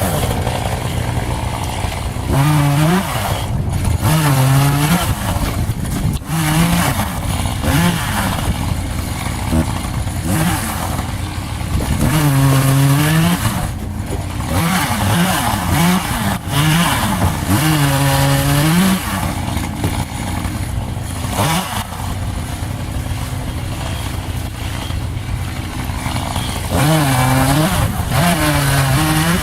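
Echo two-stroke chainsaw cutting firewood, its engine note rising and falling again and again as it revs and loads up in the cut.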